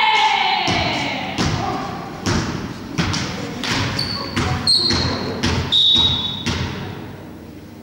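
A volleyball thudding on a sports-hall floor several times at uneven intervals, each thud echoing in the hall, with a few short high squeaks around the middle.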